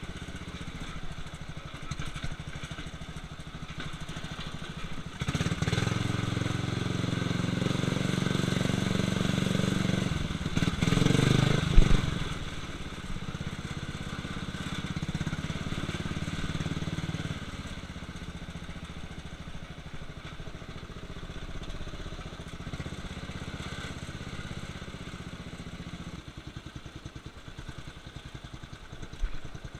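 Murray lawn tractor's engine running under load, rising to a higher, louder pitch about five seconds in and holding there until a sharp knock near twelve seconds, then dropping back to a lower steady run.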